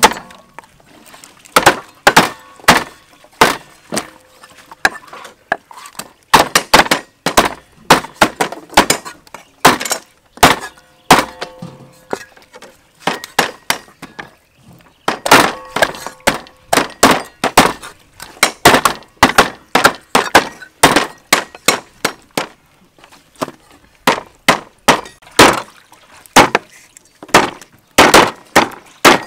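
Meat cleaver chopping raw whole chickens into pieces on a thick round wooden chopping block: sharp, repeated chops, about two or three a second, in runs broken by short pauses.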